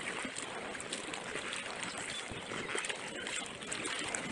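Kayak paddles dipping and splashing in the water at irregular moments, over a steady swish of water along the hull.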